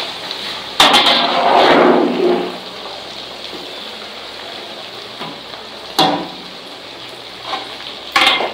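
Coated chicken legs deep-frying in hot oil in a large metal karahi: steady sizzling and bubbling, with a loud surge of sizzling about a second in as a perforated metal skimmer stirs the pieces. Sharp clicks of the skimmer against the pan twice in the second half.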